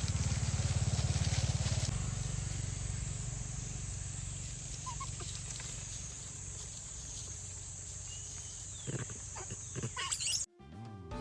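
Outdoor ambience: a steady low rumble under a steady high-pitched hiss, with a few faint short calls and clicks. Music starts just before the end.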